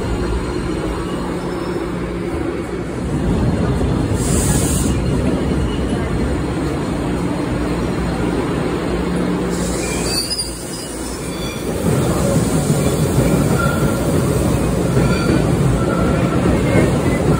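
MBTA Blue Line subway trains running through an underground station: a steady rumble of wheels on rails, with a short hiss about four seconds in. The rumble grows louder after a brief dip near the middle, with faint wheel squeal in the second half.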